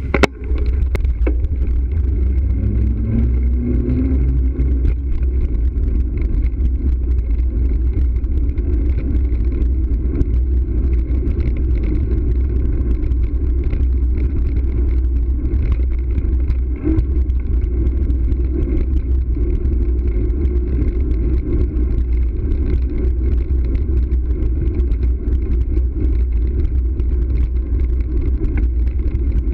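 Steady wind buffeting on a bicycle-mounted camera's microphone, with tyre and road rumble as the bike rolls along. A motor vehicle's engine rises in pitch briefly about two to five seconds in.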